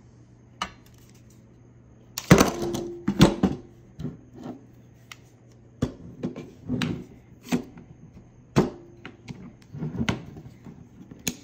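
Pistols being handled on a wooden tabletop and kitchen scale: irregular knocks and clicks of polymer and metal set down on wood, loudest about two seconds in.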